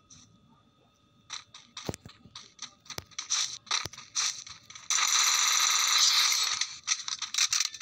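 A run of sharp clicks, then from about five seconds in a loud, dense, rapid rattling noise that goes on until near the end.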